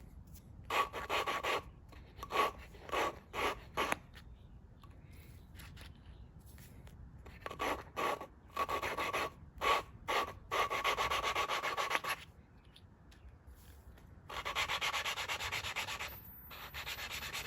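Engine valve being hand-lapped into its seat with lapping compound: a gritty grinding rasp as the lapping tool is spun back and forth, in three spells of quick strokes with pauses between. The grinding sound changes as the valve face and seat lap in smooth.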